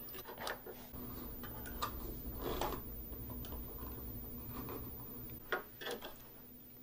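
Faint, scattered light clicks and taps of small plastic parts being handled and worked at, as the broken charging-port piece inside a Dyson V8 vacuum is worked loose.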